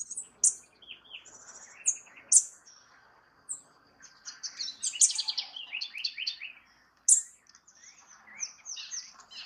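House wren (Troglodytes aedon) singing: several quick phrases of rapid high notes and trills with short gaps, a longer run of notes about halfway through.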